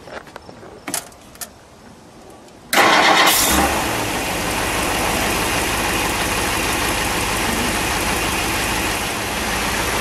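Two short clicks, then the 1960 Ford Thunderbird's 430 cubic inch Lincoln V8 fires up all at once about three seconds in. It is loudest for the first second, then settles into a steady, smooth idle.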